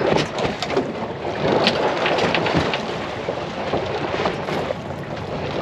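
Wind buffeting the microphone over the wash of open water around a boat, with scattered small clicks and knocks.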